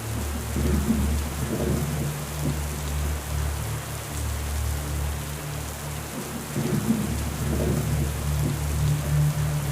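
Steady rain hissing, with deep rolling thunder that swells twice, about a second in and again near the end.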